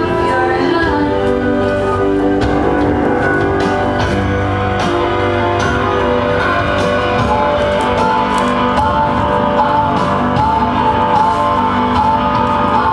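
A song with guitar and singing over a steady beat, with one note held for several seconds in the second half.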